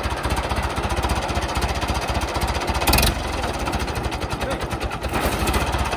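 David Brown 995 tractor's three-cylinder diesel engine idling with a rapid, even chugging. A single sharp knock about halfway through.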